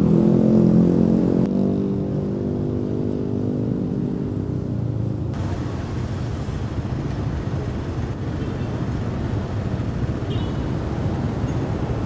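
Street traffic noise: a vehicle engine runs with a steady hum for about the first five seconds, then gives way to a general road-traffic rumble.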